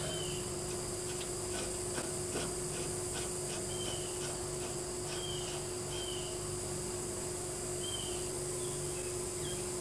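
Outdoor background: a steady insect-like buzz with a constant hum, several short high falling chirps scattered through it, and a couple of faint clicks about two seconds in.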